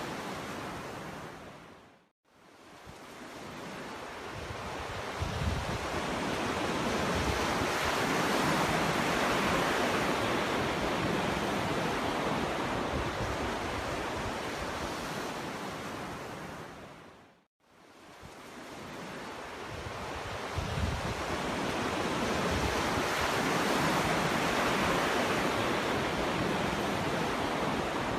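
Sea waves washing onto a beach: a steady rush of surf that swells to a peak and slowly fades. Twice the sound drops briefly to silence and then builds again.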